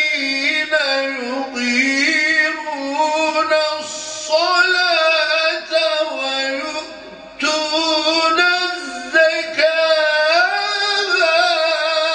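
A man reciting the Quran in the melodic, sung style (tilawah), with long, ornamented phrases that bend up and down in pitch. There is a brief pause for breath about seven seconds in.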